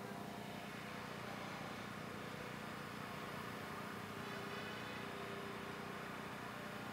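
Faint, steady background noise of an open outdoor field, with a low hum and no distinct event.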